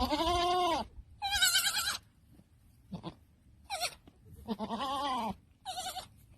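Goat bleating repeatedly: a string of calls, each wavering in pitch, with short pauses between.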